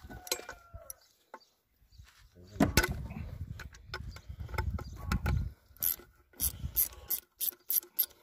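Ratchet wrench loosening a bolt on a Ford 3000 tractor's water pump: a few seconds of low rumbling and knocks as the wrench is worked, then a regular run of sharp ratchet clicks, about three a second, in the second half.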